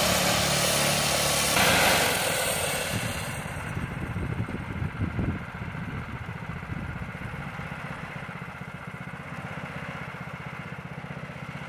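Harbor Freight Predator 212 single-cylinder engine (6.5 horsepower) in a Farmall tractor, running louder as the tractor drives up a bank, then dropping to a steady idle about four seconds in.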